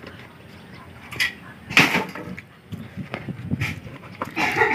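Shovel work on a dirt bank: a few short scrapes and knocks of the blade and loose soil thudding down, the loudest about two seconds in, with another cluster near the end.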